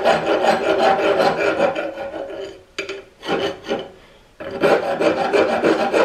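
Hand file rasping back and forth over the steel rack teeth of a Central Machinery 1-ton arbor press ram held in a vise, deburring and flattening the spot where two teeth were ground off. Fast strokes in two runs, with a pause of about a second midway.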